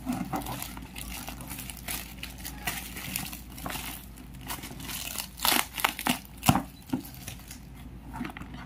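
Packaging wrapping being rustled and crinkled by hand as a shoe box is handled and freed from it, irregular throughout, with two louder crunches past the middle.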